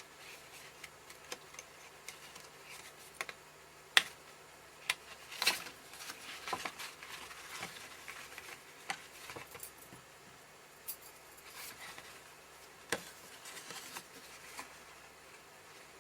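Card pieces and metal brads being handled and fitted together by hand: scattered light taps, clicks and rustles, with a few sharper clicks.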